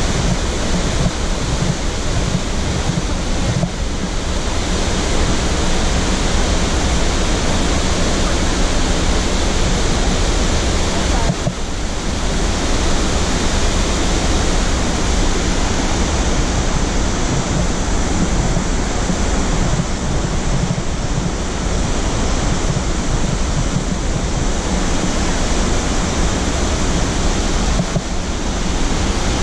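Upper Mesa Falls, a large waterfall on the Henrys Fork, giving a loud, steady, even rush of falling and churning water.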